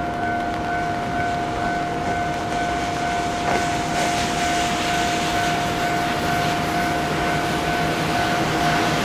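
KiHa 20 diesel railcar rolling into the platform, its engine and wheel noise growing from about three and a half seconds in. Under it a railway warning alarm sounds steadily, a held tone with a pulsing higher note.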